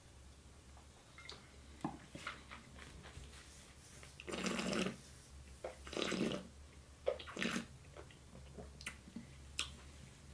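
Faint mouth and breath sounds of a wine taster after a sip: small wet clicks of the mouth and tongue, then three short breathy puffs about four, six and seven and a half seconds in.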